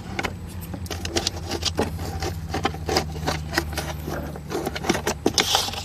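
Irregular clicks and crackles of a hot tool working through the fridge's thin, brittle plastic wall, as the plastic melts. Under them runs a steady low hum.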